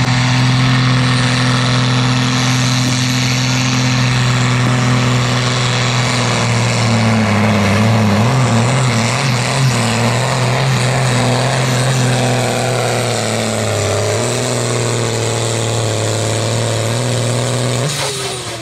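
Super Sport class pulling tractor's heavily tuned diesel engine running flat out under load as it drags a weight-transfer sled, its pitch wavering briefly midway. Just before the end the engine note breaks off and drops away as the pull finishes.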